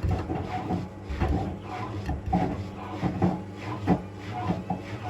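Indesit Moon SIXL145 washing machine drum turning, its rubber door seal squeaking and rubbing against the drum in irregular strokes about once or twice a second, over a low steady motor hum.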